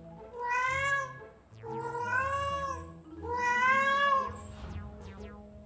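A domestic cat meowing three times in a row. Each meow is long, rising and then falling in pitch, and the third is the longest.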